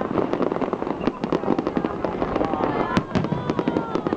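Fireworks display going off: a dense, rapid run of bangs and crackles, with one sharp, loud bang about three seconds in.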